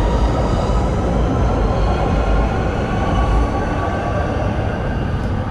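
Electric light-rail train running past close by: a steady rumble with faint high whining tones over it, the deepest part of the rumble easing about three and a half seconds in.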